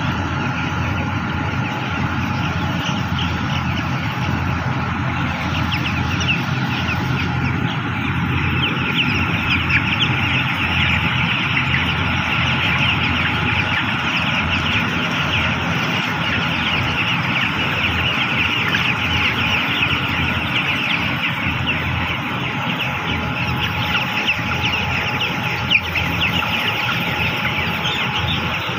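A large flock of 12-day-old broiler chicks peeping continuously: a dense chatter of many high, short calls, over a steady low hum.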